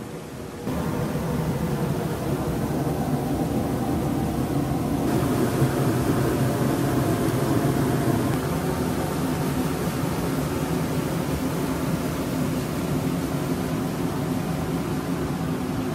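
Jigokudani hot-spring geyser spouting: a steady rushing hiss of a jet of hot water and steam. It grows hissier about five seconds in.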